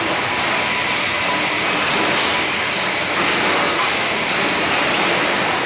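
Steady, loud industrial machinery noise: a continuous hiss and rumble with no distinct knocks or breaks.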